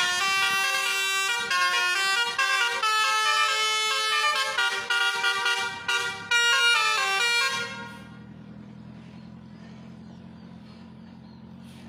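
Bus telolet horn, a multi-tone air horn, playing a stepping tune of changing notes with short breaks. It stops abruptly about eight seconds in, leaving the bus engine's low, steady running sound.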